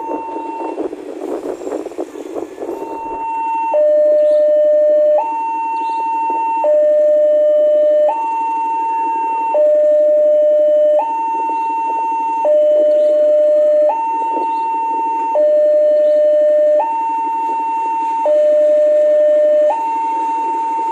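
Railway level-crossing warning alarm sounding an electronic two-tone signal that alternates evenly between a higher and a lower tone, each held about a second and a half, with the lower tone louder; it warns of a train approaching the crossing. For the first three seconds the rumble of a passing passenger train's wheels fades out under it.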